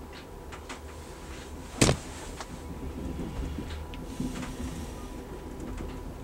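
Steady low rumble of a passenger train car rolling along the track, heard from inside, with one sharp bang a little under two seconds in and a few faint clicks and ticks.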